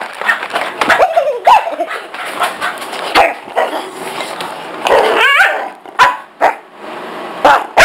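Labrador barking and yipping in several short bursts, pitched high by the sped-up recording, with a few sharp clicks in between.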